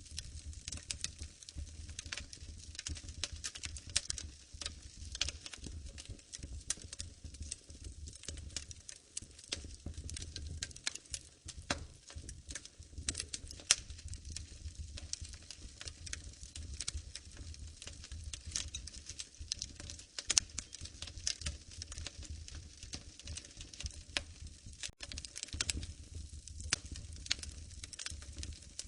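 Wood fire crackling: many small irregular pops and snaps, a few louder ones, over a low steady rumble.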